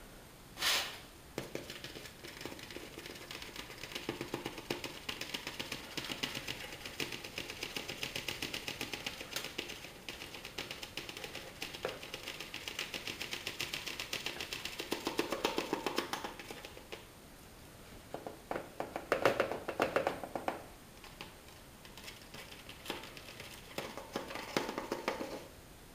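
Mesh kitchen strainer being shaken over a plastic container to sift dry firework star powder through it, making fast, even rattling taps. After about 17 seconds it turns to a few louder bursts of shaking with pauses between.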